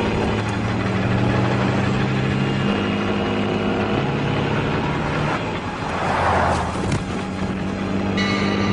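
Tanker truck and car engines running hard at speed, with steady droning tones that shift in pitch a few times. A brief rushing burst of noise comes about six seconds in.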